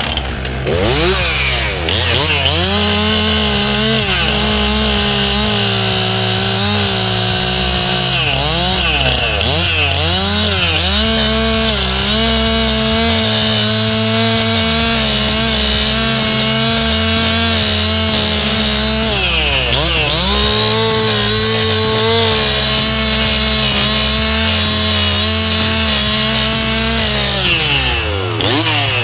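Stihl chainsaw running at high revs while its bar is swept flat across the end grain of a log stump, shaving about a centimetre off the top to level it. This is the 'brushing' technique. The engine dips and revs back up several times as the cut is worked across the surface.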